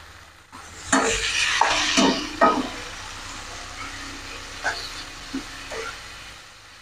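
Tomatoes frying and sizzling in oil in a nonstick wok while a wooden spatula stirs and scrapes them. The stirring starts about a second in, loudest at first and then easing, with a few sharp knocks of the spatula against the pan.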